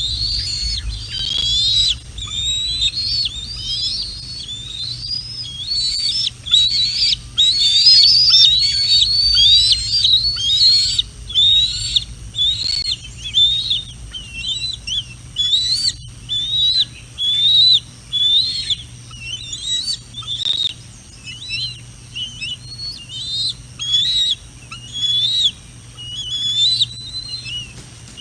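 Juvenile bald eagle giving a long series of high, thin whistled call notes, each rising then dropping, the piping begging call of a young eagle near fledging. The notes come in quick, louder runs in the first half, then settle to about one a second.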